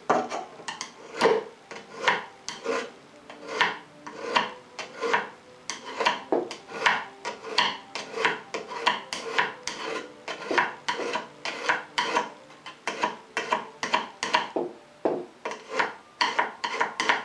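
Steel screwdriver shank rubbed again and again on and off the edge of a 2.5-inch paint scraper's blade, metal scraping on metal in quick strokes, about two or three a second, with a faint ring. It is burnishing off the burr left on the blade's bevelled edge.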